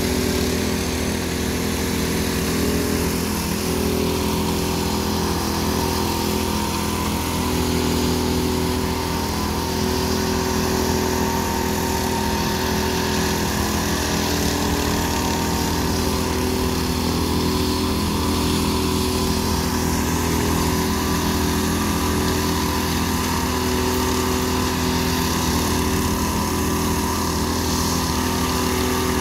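Walk-behind power trowel (helicopter trowel) running steadily, its small engine turning the blades as they float and finish a fresh concrete slab.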